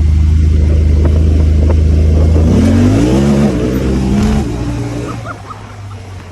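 Honda Talon 1000R side-by-side's parallel-twin engine running at steady revs, then revving up about two and a half seconds in and holding high before easing off near the five-second mark, where the sound drops away.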